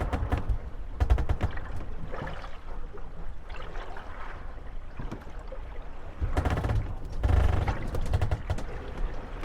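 Moored gondolas rocking on the waves, their wooden hulls knocking and creaking against each other in bursts of rapid clatter over sloshing water. The loudest bursts come near the start and again from about six to eight seconds in.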